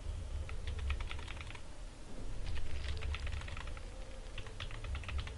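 Computer keyboard being typed on in short runs of keystrokes, with brief pauses between the runs.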